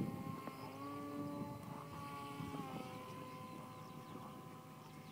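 Motor and propeller of a radio-controlled flying wing running with a steady whine as it flies away, fading gradually; the pitch steps up about a second in and drops slightly a little under three seconds in.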